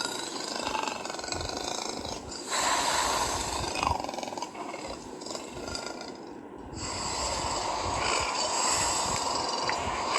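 A large wild animal calling in three long, rough, breathy bouts of a few seconds each, with short breaks between them.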